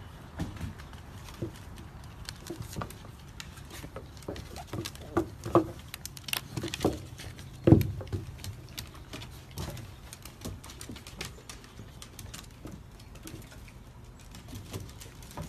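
Miniature dachshund puppies' paws pattering and scrabbling on wooden decking and a cushion as they play-wrestle, a steady run of small clicks and knocks. A few short puppy vocal sounds come in the middle, and a louder thump comes a little past halfway.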